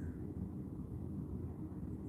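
Steady low outdoor background rumble, with a faint short high chirp at the very start.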